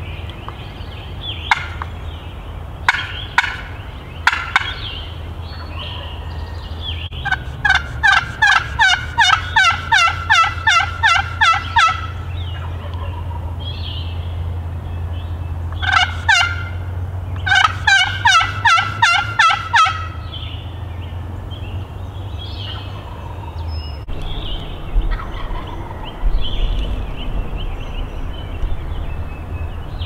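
Turkey yelping in two long runs of evenly spaced notes, about three a second, with fainter turkey calls in between. It is a hunter calling to a wild tom turkey that is gobbling back as it comes in.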